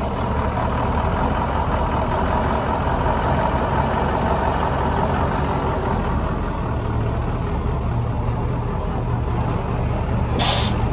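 Large truck's engine idling steadily, with a short hiss of compressed air near the end.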